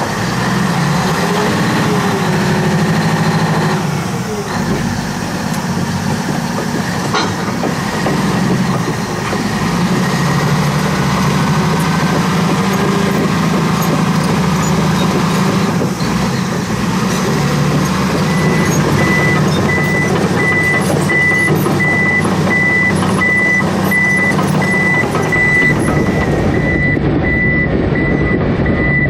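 Komatsu D155AX bulldozer's diesel engine running steadily under work. About two-thirds of the way in, its reversing alarm starts beeping, a bit over once a second, as the machine backs up.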